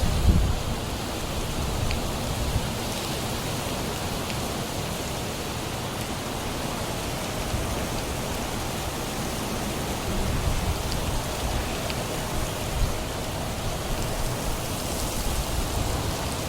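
Steady heavy rain in a windstorm, with gusts of wind rumbling on the microphone near the start and again about ten seconds in.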